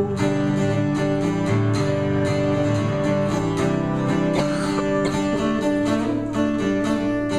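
Acoustic guitar played solo in a steady strummed rhythm, an instrumental break with no singing.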